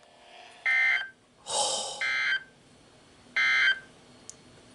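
Emergency Alert System end-of-message data bursts from a radio's speaker: three short, harsh digital squawks about a second and a half apart, marking the end of the alert. A brief noisy rush comes just before the second squawk.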